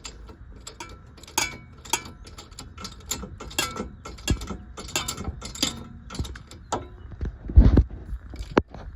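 Irregular metallic clicks and clinks of hand tools working a loosened tie rod on a car's front suspension, with one heavier knock about seven and a half seconds in.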